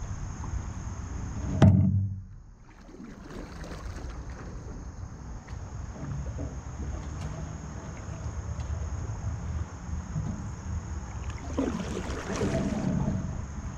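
Canoe being paddled on a calm river: paddle strokes swish and splash in the water, louder near the end. A sharp knock comes about a second and a half in. Insects trill steadily high in the background.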